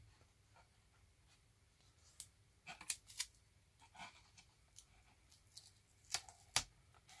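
Quiet clicks and rustles of gaffer tape being handled and pressed by hand onto a small circuit board in a cardboard housing, with a few short sharp ticks in the middle and near the end.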